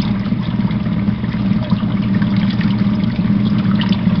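Portable washing machine's electric motor running steadily in its spin cycle, a hum under water splashing as the water is forced out through the drain hose.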